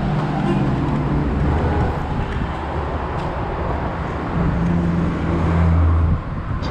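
A motor vehicle running, a steady low engine hum with road noise, swelling about two-thirds in and dropping off just before the end.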